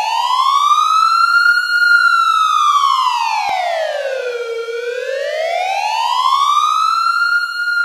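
A siren wailing, its pitch rising and falling slowly: it climbs, sinks back, and climbs again, with a faint click about three and a half seconds in.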